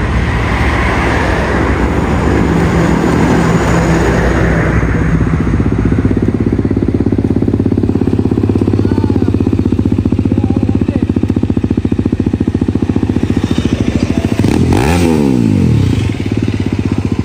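BMW G310RR's single-cylinder engine running steadily through a fitted aftermarket exhaust, with a rush of wind and road noise over it for the first five seconds that then fades. Near the end, the throttle is blipped once and the engine pitch rises and falls.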